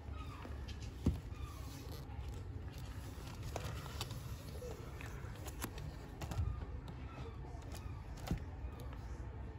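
Plastic DVD cases on a shop shelf clicking and knocking a few times as a hand flicks along their spines, over a steady low room hum.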